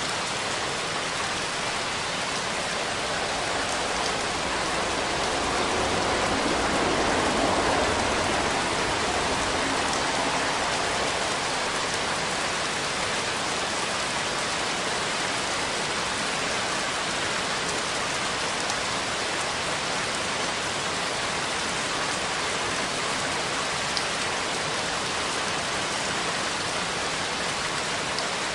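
Steady rain falling on a surface, a dense even hiss of drops that swells slightly for a few seconds near the start.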